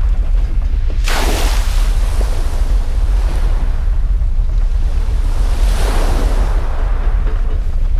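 Layered cinematic sound effects: a continuous deep rumble under a rushing, surf- or wind-like roar. A sudden sharp whoosh comes about a second in, and another rush swells up near six seconds.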